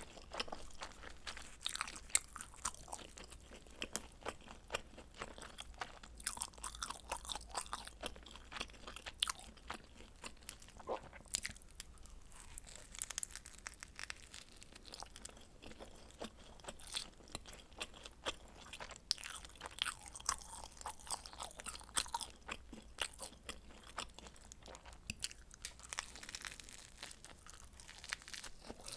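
Close-miked chewing and biting of pizza, with dense, rapid crunches and wet mouth clicks from the crust.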